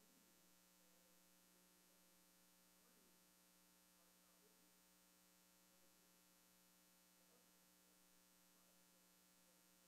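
Near silence: a steady electrical hum with several constant tones, with faint, distant off-microphone speech beneath it.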